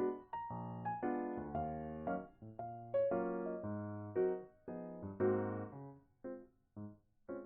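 Background music: a gentle piano tune of single notes and chords, each struck and then fading, a few notes a second.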